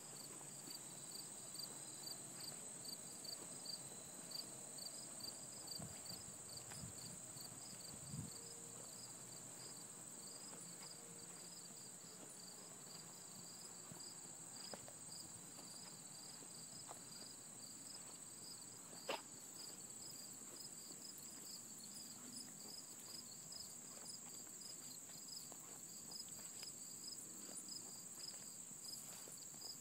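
Insects calling: a steady high-pitched drone with a cricket-like chirp repeating about twice a second over it. A single sharp click about two-thirds of the way through.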